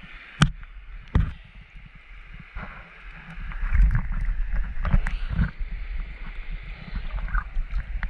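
Muffled water sloshing and rumbling around a snorkeler's camera, with two sharp knocks near the start and louder, uneven rumbling from about halfway.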